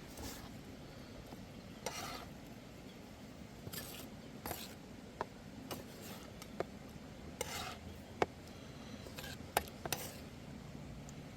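Cooking utensils and gear being handled: irregular short scrapes and sharp clicks, about a dozen scattered through, over a low steady background hum.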